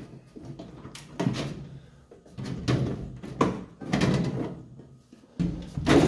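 Sheet-metal outer cover of a microwave being pulled back and worked loose, giving a series of short scraping and clattering metal noises.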